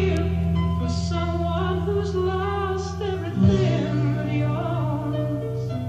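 An NSM Prestige jukebox playing a record: a singer's voice over long held bass notes, which change to a new note about three and a half seconds in.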